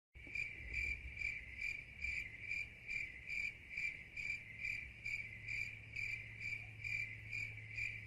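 Cricket chirping in a steady, even rhythm of short high-pitched chirps, a little over two a second.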